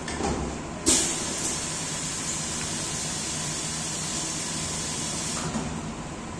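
Semi-automatic blister forming machine in its forming cycle: a sharp clunk about a second in, then a steady hiss of air for about four and a half seconds that cuts off near the end, over a low steady machine hum.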